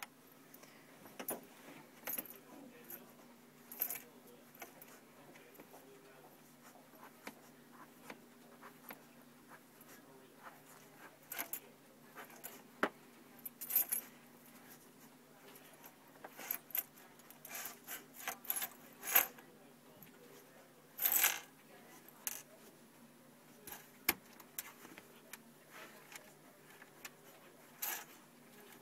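Dog nudging a bunch of keys while pushing a towel over them, trying to bury them: the keys jangle and clink in short, scattered bursts over a faint steady hum.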